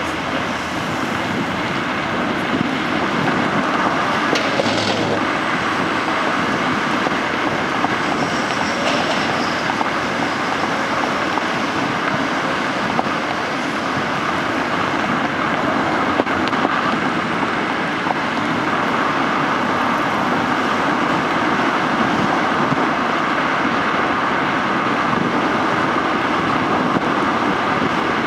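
Steady road and traffic noise from a car driving on city streets: an even hiss of tyres and passing vehicles. A brief high squeal comes about eight seconds in.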